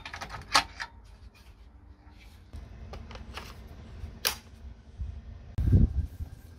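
Sharp plastic clicks and knocks as a WOLF-Garten multi-star GC-M gutter-cleaner head is lifted off a wall-mounted tool rack and handled, with a dull low thud near the end.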